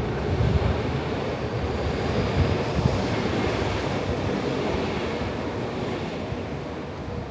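Steady rush of city street traffic, with wind rumbling on the microphone, easing off slowly near the end.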